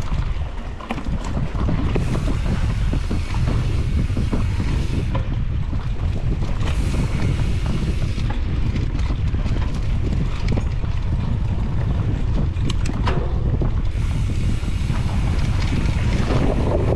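Wind rushing and buffeting over an action camera's microphone as a mountain bike is ridden over rough ground, with scattered small knocks and rattles.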